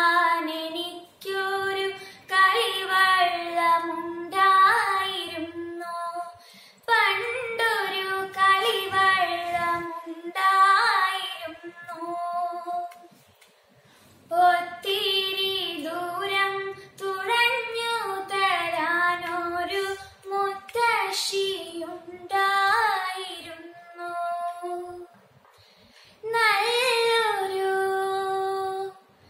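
A girl singing a Malayalam song solo with no accompaniment, in long melodic phrases broken by a few short pauses.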